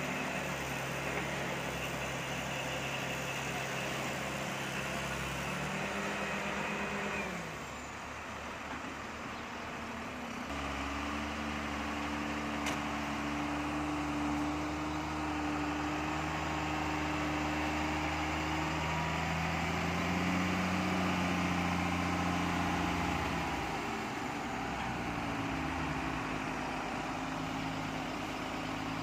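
Diesel engines of a Tata Hitachi 200 excavator and Tata tipper trucks running at a dig site. The engine note drops about seven seconds in, steps up again near eleven seconds as the machines work under load, and shifts once more after about twenty-three seconds.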